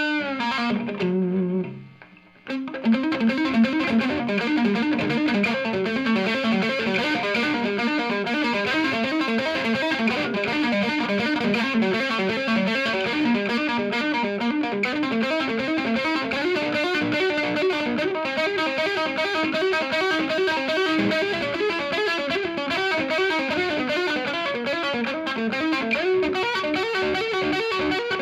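Reville MV-X electric guitar with P90 pickups played through a Monoprice 15-watt tube amp with the gain at maximum: a distorted lead tone. It opens with a bent note that dies away about two seconds in, then runs on as a continuous line of fast picked notes.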